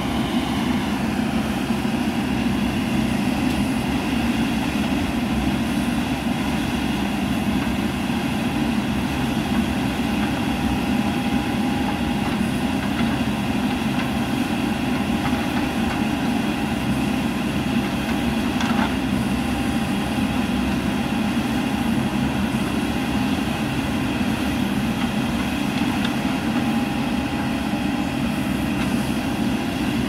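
JCB 3DX backhoe loader's diesel engine running steadily while its backhoe arm digs soil.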